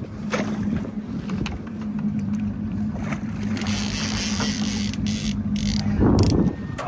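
Boat's outboard motor idling steadily, with a big halibut thrashing and splashing at the surface beside the hull about midway. A brief loud low rumble comes near the end.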